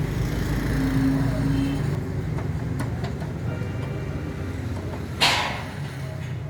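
A steady low mechanical hum, like an engine running, with one sharp knock about five seconds in.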